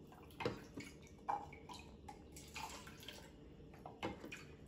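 Tap water splashing and trickling as a measuring cup is dipped into a bowl of water and poured into plastic cups, in a few short, faint splashes.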